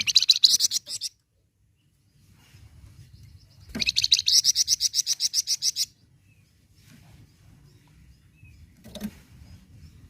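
Flamboyan songbird call: two fast, rattling trills of evenly repeated high notes, about a dozen notes a second. A short one comes at the start, and a longer one of about two seconds comes near the middle.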